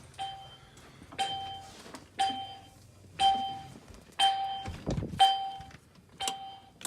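Smoke detector in alarm, set off by fog-machine fog: a loud beep repeating about once a second, each beep about half a second long. There is a low thump about five seconds in.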